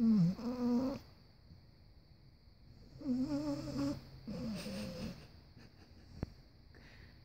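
A sleeping pet snoring: three drawn-out snores with a wavering, whining pitch, one at the start and two close together about three seconds in.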